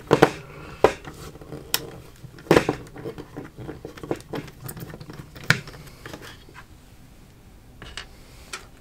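Irregular sharp clicks and light scrapes of a screwdriver working the screws out of a D-Link gigabit switch's circuit board in its plastic case, with small parts being handled. The clicks come thicker in the first half and thin out near the end.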